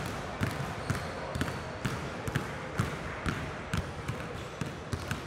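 Basketballs being dribbled on a hardwood gym floor: a steady run of bounces, about two a second, with fainter bounces from other balls in between.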